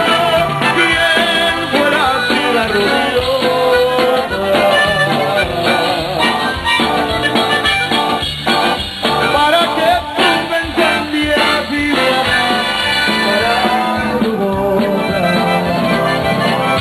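Tejano band playing live, with accordion and a steady beat.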